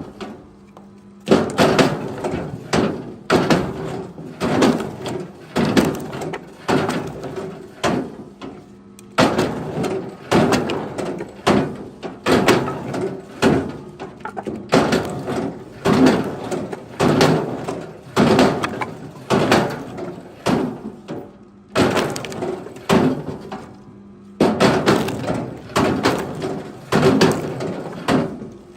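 Firewood chunks clunking and knocking against one another as they are handled and tossed, a sharp wooden knock every half second to a second in runs with short pauses.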